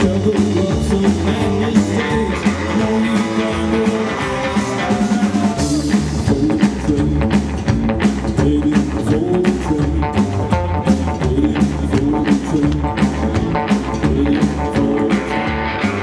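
Live rockabilly band music: electric guitar over upright double bass and a drum kit, with a steady driving beat and no singing.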